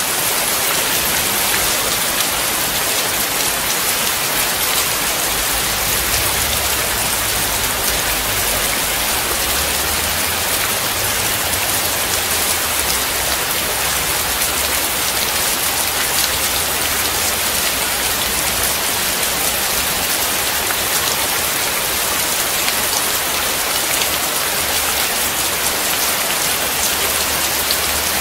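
Steady rain falling and splashing on a wet surface: a dense, even hiss of many drops that does not let up.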